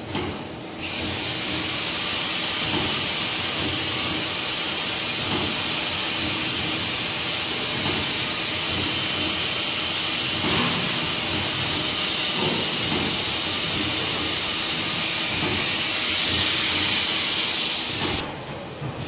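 Steady, loud hiss from a hose-fed hand tool working on the machine, starting about a second in and cutting off suddenly near the end, over the machine's steady motor hum.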